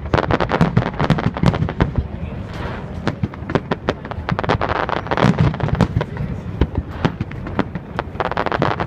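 Aerial fireworks display: a rapid, continuous barrage of shell bursts and crackling, several bangs a second, with thicker flurries of crackle every few seconds.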